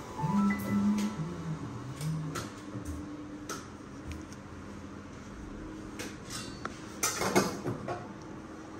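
Clinks and knocks of household objects being handled, with a louder clatter about seven seconds in.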